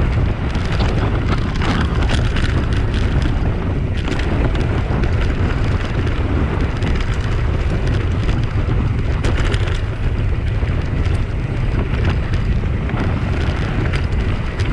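Mountain bike riding fast down a dry, stony dirt singletrack: heavy wind rumble on the camera microphone, with the tyres rolling over loose dirt and stones and scattered clicks and rattles from the bike.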